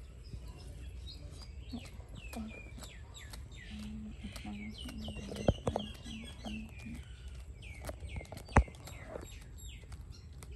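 Small birds chirping again and again in quick down-sliding chirps, with a couple of sharp knocks, the loudest about two-thirds of the way through.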